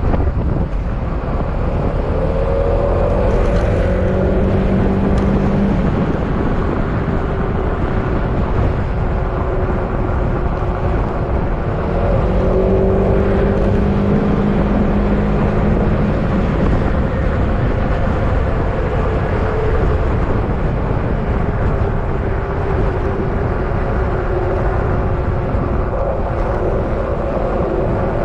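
Yamaha XMAX scooter's single-cylinder engine running under way, under heavy wind and road noise. A steady engine tone comes up about two seconds in and again about twelve seconds in as it pulls, then fades back into the rumble.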